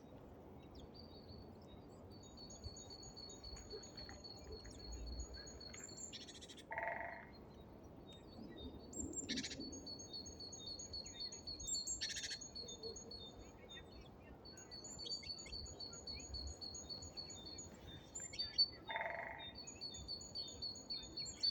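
Small songbirds calling around a winter bird feeder: long series of rapid, high repeated notes, with a couple of short, lower calls about a third of the way in and near the end.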